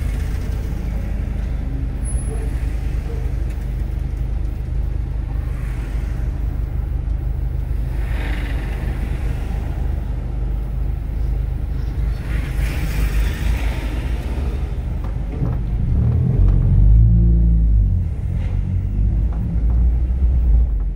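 A car running along a street: a steady low engine and road drone, with two brief swells of noise and a heavier low rumble over the last few seconds.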